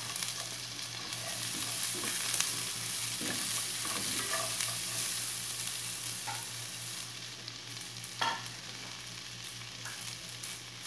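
Fresh green beans frying with sliced onion and garlic in hot olive oil in a pot, a steady sizzle just after the beans go in. There is a single sharp click about eight seconds in.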